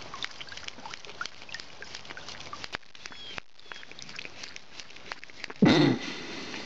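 A goat lapping water from a barrel with its tongue: many small wet slurps and splashes. About five and a half seconds in, a short loud goat bleat.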